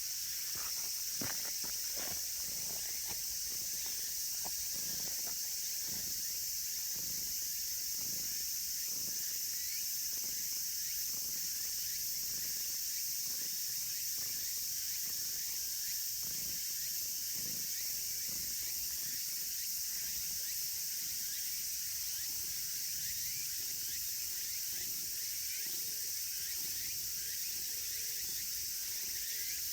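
A steady, high-pitched chorus of insects throughout, with soft low thumps about once a second, most often in the first half.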